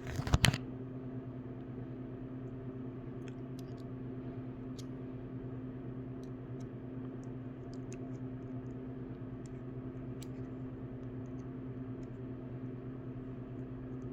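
Ratchet and bit set pieces being handled: a loud metal clack about half a second in, then faint scattered clicks, over a steady low hum.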